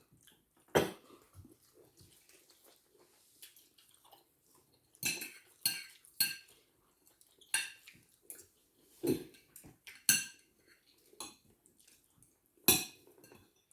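Cutlery clinking and scraping against plates during a meal, in about ten scattered sharp clinks.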